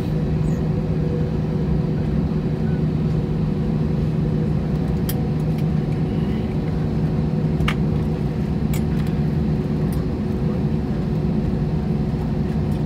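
Airbus A320's jet engines at idle heard from inside the cabin as the aircraft taxis slowly onto its stand: a steady low hum and drone over a rumble. A few faint clicks from the cabin come through.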